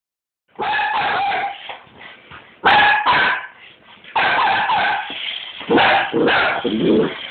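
Border Collies barking in agitated, high-pitched, drawn-out bouts, stirred up by a car. There are four bursts, the first starting about half a second in.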